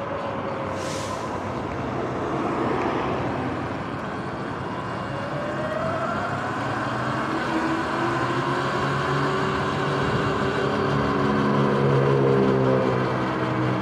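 Sur-Ron electric dirt bike's motor whining under wind and tyre noise, its pitch gliding up and down with the throttle. In the second half the whine firms into a steady hum of several tones and grows louder as the bike speeds up. A brief hiss about a second in.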